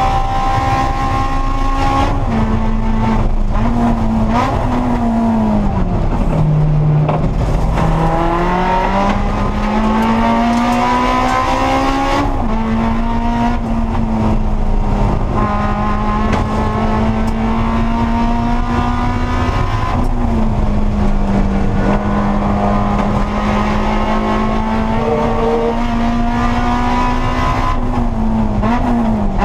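In-car sound of a Honda S2000 race car's four-cylinder engine at racing speed over steady wind and road noise. The engine note sags to its lowest about six seconds in, climbs steadily as the car accelerates, then holds high. Near the end it gives a few quick dips and rises in pitch as the car brakes.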